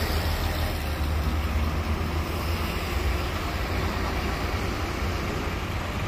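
Large coach bus's diesel engine running with a steady low rumble as the bus drives off.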